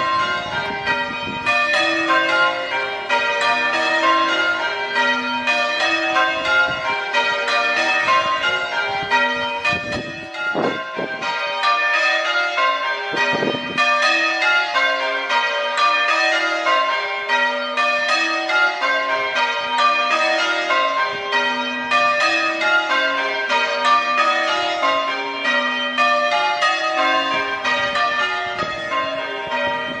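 Change ringing on the ring of six church bells of St Mary the Virgin, Turville (tenor 7-3-11 cwt in B-flat, with an Eijsbouts treble). The bells strike one after another in a steady, even rhythm without a break.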